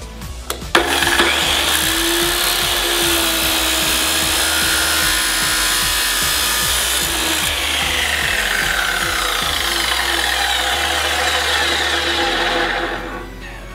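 Abrasive chop saw starting up about a second in and grinding its cut-off wheel through braided stainless steel hose and the steel hose clamp around it, a steady loud grind that stops near the end.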